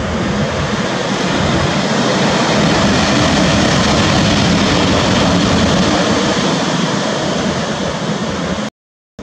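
EP05-23 electric locomotive passing close by: a loud, steady rumble and rush of its running gear that swells as it draws level, then cuts off abruptly near the end.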